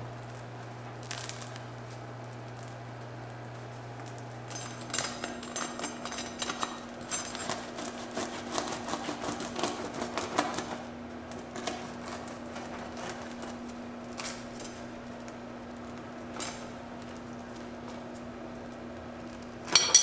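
Knife sawing through the crisp crust of a freshly baked bread loaf: a dense run of crackles and crunches, over a low steady hum. A louder sharp crunch comes near the end.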